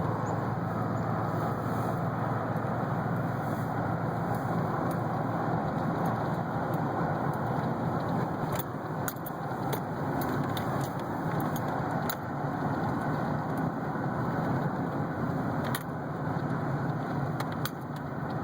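2008 GMC Sierra 1500 4WD running with a steady drone, with sharp pops from the front end at irregular intervals, clustered in the second half; the owner takes the popping for a bad front wheel bearing.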